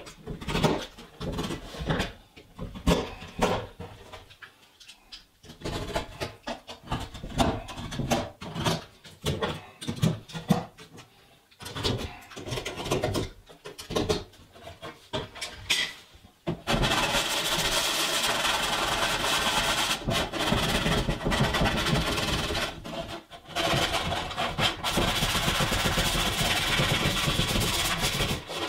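Hand work at the edge of a hole in a masonite hollow-core door: irregular short scrapes and clicks for the first half. Then, from a little past halfway, a sanding sponge is rubbed back and forth on the door skin as a steady scratchy rubbing, with one short break.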